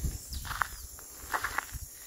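Footsteps on a dirt path with small birds chirping: a few quick notes about half a second in and another cluster around a second and a half in.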